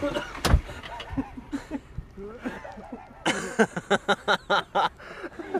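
Men laughing in a run of short rhythmic bursts that starts a little past the middle, with scattered voice sounds before it and a single sharp knock about half a second in.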